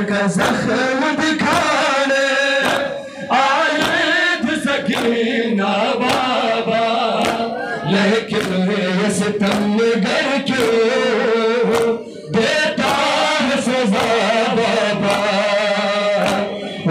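Male voices chanting a noha, a Shia lament for Imam Hussain, over a steady rhythm of hands beating on chests (matam).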